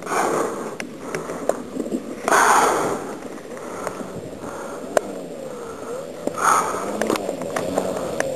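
Engine of an RC scale Nieuport 28 biplane running at low throttle as the model rolls out and taxis across grass, its pitch wavering up and down. A few short rushes of noise and sharp clicks come through.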